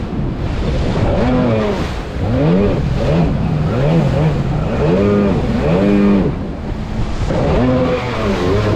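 Jet ski engine revving up and down over and over, its pitch rising and falling every second or two as it rides through big waves, with a steady rush of wind and water.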